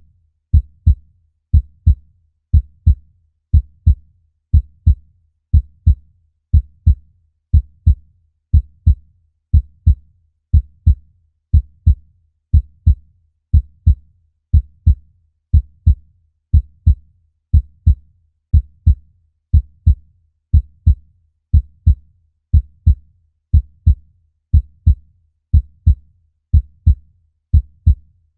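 Human heartbeat: a steady, even rhythm of low double thumps, the lub-dub of the heart.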